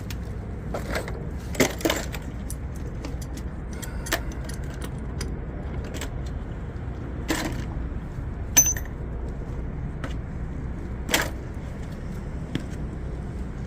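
Scattered metal clinks and knocks, the loudest a short ringing ping past the middle, as tools and pipe fittings are handled during the ball valve installation, over a steady low hum.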